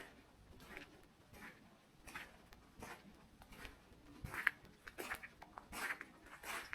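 Footsteps on a forest path at an even walking pace, about one step every three-quarters of a second, growing a little louder in the second half.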